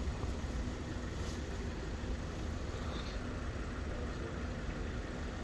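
Steady low rumble of road traffic, with a faint even engine hum.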